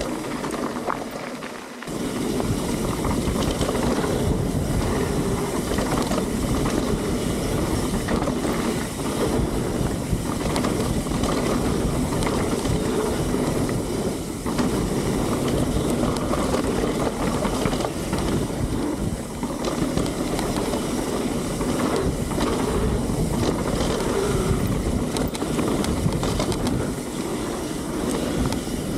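Mountain bike riding fast down a dirt trail: a steady rush of tyre and wind noise with frequent knocks and rattles from bumps. It is quieter for the first couple of seconds, then runs loud and even.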